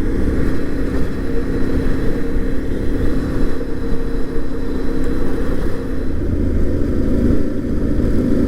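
Yamaha Ténéré 700's parallel-twin engine running at a steady, even pace while the motorcycle rides along, over a low rumble of wind and road noise.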